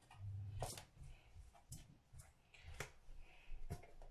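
Faint kitchen handling noise during food prep: a handful of short, sharp clicks and light taps, roughly one a second.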